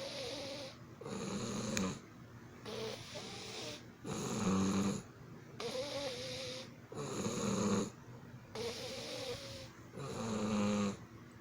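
Snoring in a slow, even rhythm, about one breath every three seconds. Each breath has a louder low snore followed by a quieter, higher wavering whistle.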